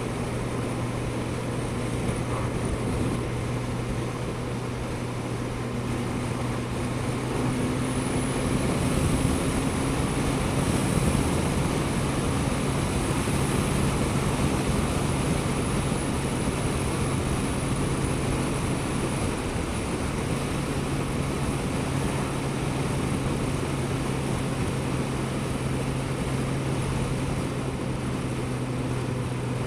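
Suzuki GSX-S1000GT's inline-four engine running steadily with the bike under way, over a steady rush of wind and road noise. The engine note climbs a little about seven seconds in, then holds.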